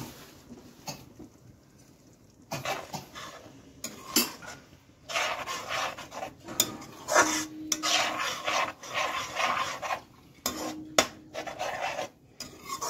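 Metal slotted spoon scraping and clinking against an aluminium kadhai while stirring a thin pea-and-masala gravy, in irregular strokes that get busier a few seconds in.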